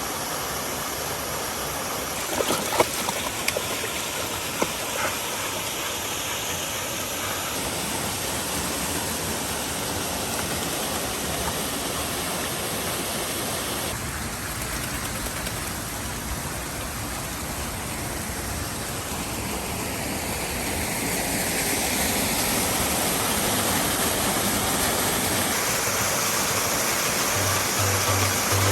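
A waterfall and creek rush steadily, the falls running after heavy rain. A few sharp clicks come between about two and five seconds in, and the tone of the rush shifts several times.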